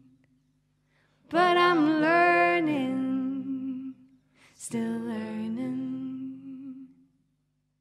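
Wordless singing in two sliding phrases, each about two and a half seconds long; the second dies away about seven seconds in.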